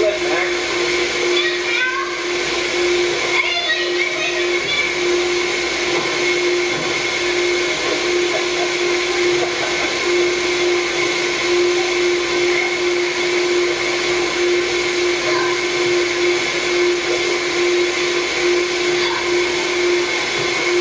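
Steady motor-driven whirring drone with a constant hum, the sound of the electric air blower that keeps an inflatable bounce floor inflated.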